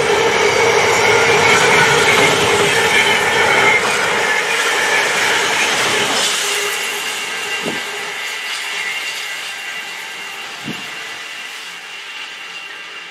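Container freight train's wagons rolling past on the rails, the wheels giving a steady high whine over the running noise. The sound fades steadily as the tail of the train pulls away. Two short dull thumps come in the second half.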